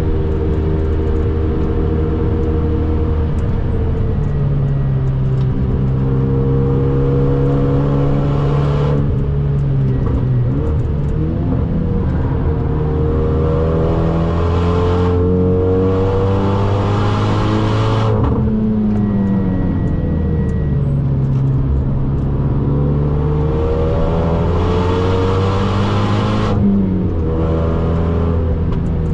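Cabin sound of a tuned 2012 Renault Mégane R.S. 265's turbocharged 2.0-litre four-cylinder engine driven hard: revs climbing under throttle and dropping sharply at gear changes, repeatedly. Near the middle the pitch falls away steadily as the car slows.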